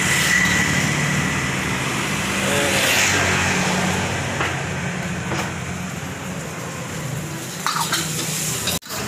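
Steady roadside traffic noise with a low engine hum, cutting out briefly near the end.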